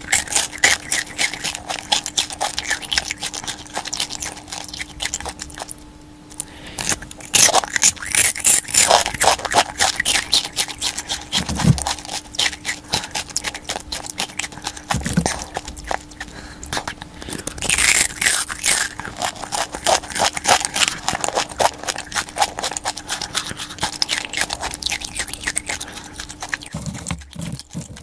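Crisp fried chicken skin crunching as it is bitten and chewed close to the microphone: a dense run of sharp crackles, with a brief pause about six seconds in.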